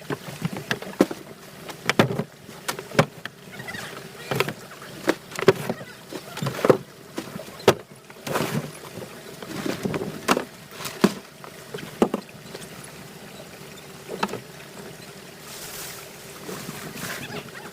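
Irregular sharp knocks and clatter aboard a small fishing boat, about one every half second to a second, thinning out after about twelve seconds, over a faint steady engine hum.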